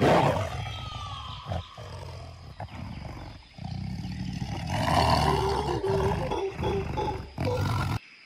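Tiger growling and roaring, starting abruptly.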